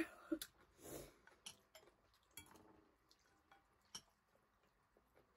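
Faint eating sounds: chopsticks and a fork clicking against ceramic noodle bowls, a handful of scattered clicks, with soft wet noises of noodles being eaten.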